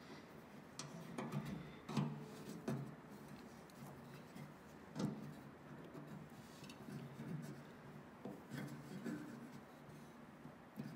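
Small metal fuel sediment bowl assembly being screwed on by hand: faint rubbing and scraping of metal on metal, with a few light knocks, the sharpest about two and five seconds in.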